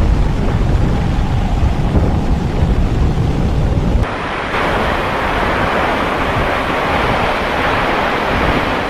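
Storm wind buffeting the microphone in heavy low gusts. About four seconds in, the rumbling drops away and a steady loud hiss of wind-driven storm noise takes over.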